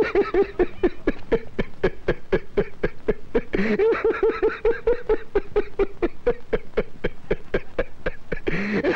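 A man laughing heartily, a long unbroken run of short 'ha-ha' pulses, about five a second.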